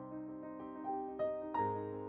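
Background piano music: held chords, with a few single notes struck over them.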